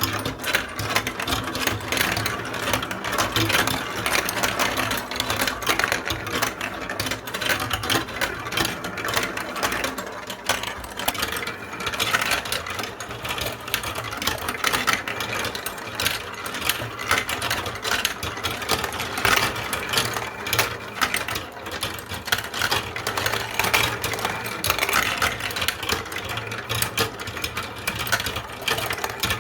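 Many small balls rolling and clattering down a block-built marble run track, a dense unbroken rattle of quick clicks.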